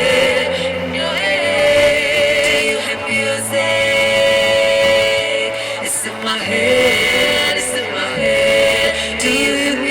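Band music with a singer: long held vocal notes over a steady low bass part.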